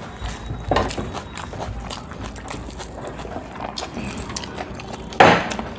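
Eating sounds: fingers working rice on brass plates and people chewing, a run of small clicks, smacks and scrapes. One louder short noise comes about five seconds in.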